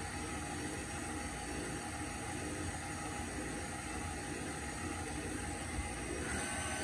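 Electric stand mixer running steadily, its flat beater turning through sweet-bread dough with eggs in a steel bowl. Near the end a higher steady whine joins in.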